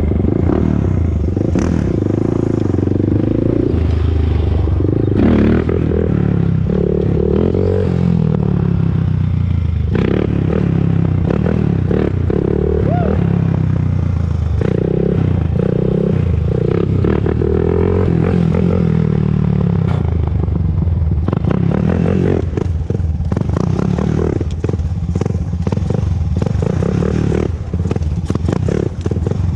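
2001 Honda TRX400EX quad's single-cylinder four-stroke engine running on a ride, its pitch rising and falling as the throttle is worked. A fast rattle joins it in the later part. This is a test ride for a ticking noise that the owner believes is now solved.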